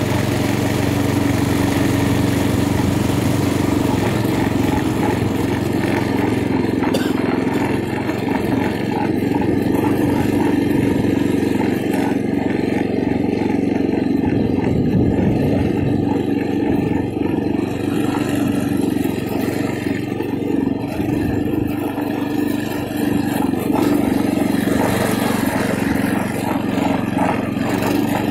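TrailMaster MB200 mini bike's 196cc single-cylinder four-stroke engine running under way, its note holding fairly steady, with small dips about eight seconds in and again around the middle.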